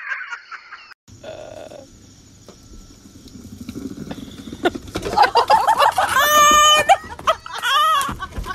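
People shrieking and screaming in high pitch, a run of loud swooping cries starting about five seconds in, over faint background noise.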